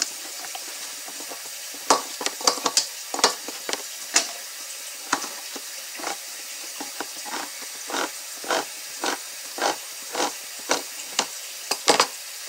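Handheld crank can opener cutting around the top of a steel can: sharp clicks and short scrapes as the crank turns. They are irregular at first, then settle into a steady rhythm of about two a second.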